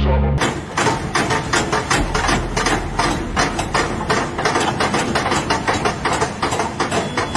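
Construction-site machinery or tools knocking and hammering rapidly and irregularly, several strikes a second, starting abruptly about half a second in as the music cuts off.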